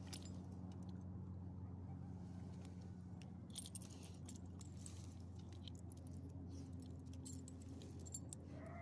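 Dog leash and collar metal hardware jingling in scattered short, faint clinks as the dogs move, over a steady low hum.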